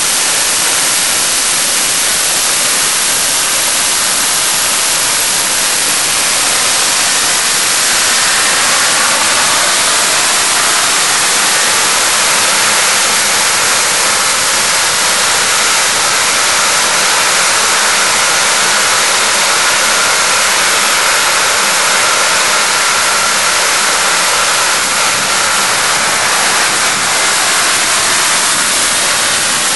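Home-built turbojet made from a Garrett automotive turbocharger running: a loud, steady hissing roar with a faint whine in it that strengthens a little after about eight seconds.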